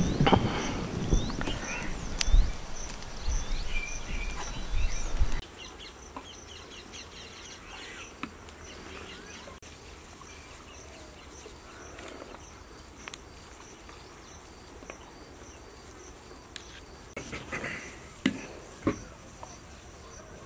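Insects chirping in a steady, evenly repeating high-pitched pulse, with a few bird chirps. For about the first five seconds louder low rumbling and knocks sit under it, then stop suddenly.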